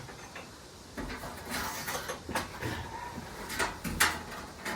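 Scattered knocks and clunks from heavy items and straps being handled in a cargo trailer, several over a few seconds, with the two strongest near the end.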